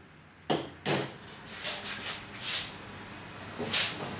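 Marine plywood panels being handled on a work table: two sharp knocks about half a second in, then soft scraping and sliding of wood, with one more scrape near the end.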